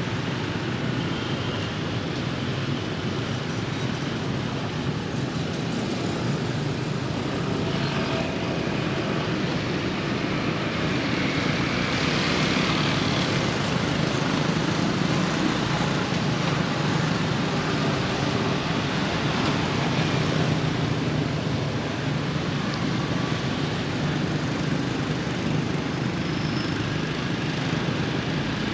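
Outdoor ambience dominated by a steady low rumble of road traffic, swelling for several seconds in the middle as a vehicle passes, with a few faint bird chirps over it.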